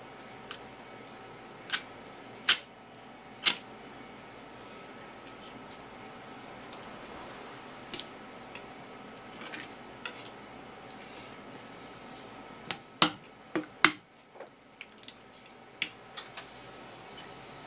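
Knife blade and fish tapping and knocking on a wooden cutting board while an isaki (chicken grunt) is filleted: a dozen or so sharp, irregular knocks, with a quick run of four about two-thirds of the way through.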